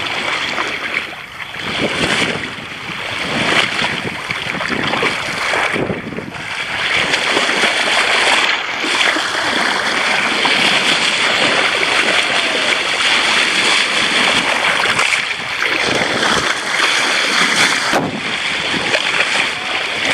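Bow wave of a moving boat rushing and splashing along the hull, with wind buffeting the microphone; it grows louder about a third of the way in.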